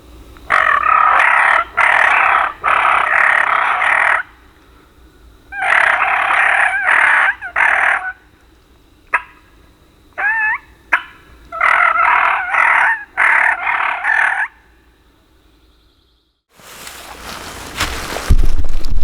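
Wild turkey gobbler gobbling hard at close range, three loud bouts of rattling gobbles a few seconds apart. A rushing, rustling noise rises near the end.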